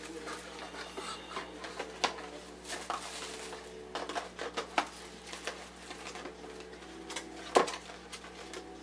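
A cardboard subscription box and its packaging being opened and handled: scattered clicks, taps and paper rustles, with one sharper knock near the end.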